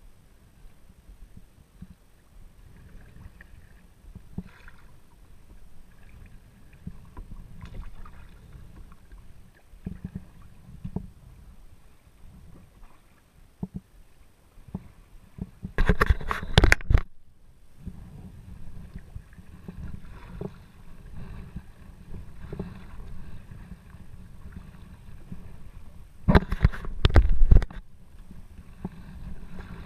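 Kayak paddling on a small river: paddle strokes dipping and water splashing along the hull over a steady low rumble. Two loud bursts of about a second each break in, one about halfway and one near the end.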